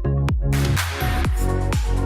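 Electronic dance music with a steady kick drum about twice a second over sustained bass, and a crash of cymbal-like noise about half a second in.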